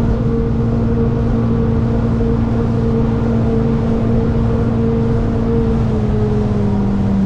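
Motorboat engine running steadily underway, a constant low hum with a clear pitch that eases down slightly near the end as the throttle comes back.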